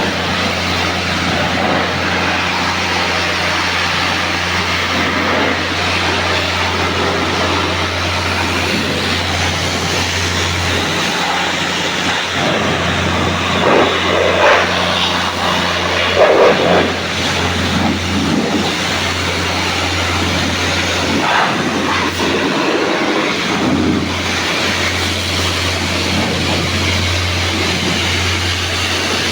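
An electric machine running steadily: a constant low mains hum under a broad rushing hiss, with a few brief louder clatters near the middle.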